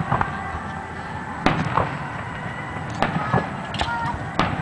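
Aerial firework shells bursting: a series of sharp bangs roughly one a second, each trailing off briefly.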